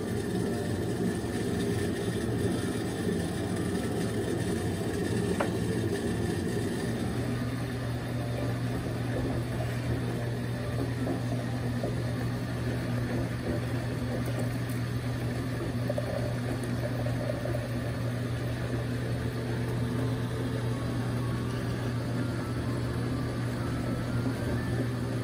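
A small motor's steady low hum, running without change.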